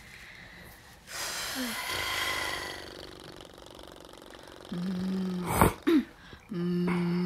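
A singer warming up at a studio microphone: a long breath, then hummed notes each held steady on one pitch, with a sharp click between them.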